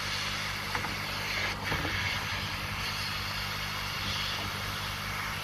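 Hot air rework station blowing a steady hiss with a low electrical hum, heating a laptop battery connector's solder joints to free it; a few faint clicks about a second and a half in.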